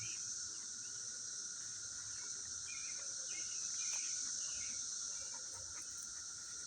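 Chorus of periodical cicadas in the trees: a steady, high-pitched rattling drone.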